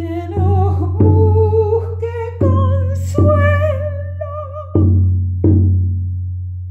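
A baguala sung to a deep drum. A single voice with wide vibrato sings a slow melody over drum strokes that come in pairs about every two seconds. The voice stops about two-thirds of the way through, leaving only the drum strokes ringing out.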